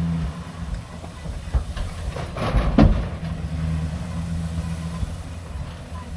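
Truck engine running steadily while towing a loaded livestock trailer, with a burst of metal rattling and clanking from the trailer a little under three seconds in.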